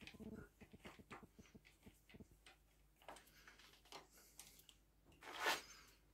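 Faint handling noise as a hand turns a stopped lathe's monkey puzzle wood blank by hand: scattered small clicks and taps, with one louder brushing swish about five and a half seconds in.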